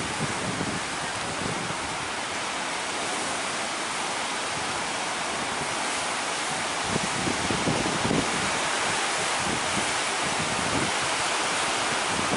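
Sea surf breaking in a steady wash of noise, with gusts of wind buffeting the microphone, strongest about seven to eight seconds in.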